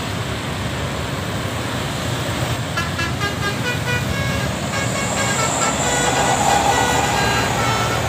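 Traffic of motorcycles and buses passing with a steady engine rumble; about three seconds in, a bus's multi-tone telolet horn starts playing a quick melody of short notes at changing pitches, several a second, that runs on.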